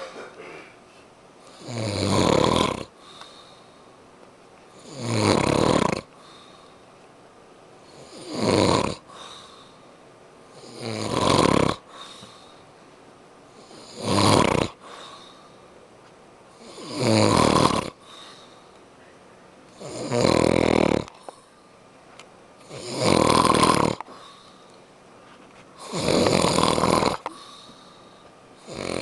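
A sleeping person snoring loudly and rhythmically, one rasping snore on each in-breath about every three seconds, with quieter breathing between them.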